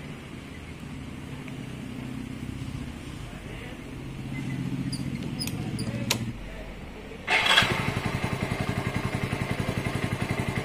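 A few light clicks at the handlebar switches, then about seven seconds in a motorcycle engine starts on the electric starter, catches at once and settles into a steady, evenly pulsing idle. The starter switch, rusted by rainwater, has just been cleaned with WD-40 spray.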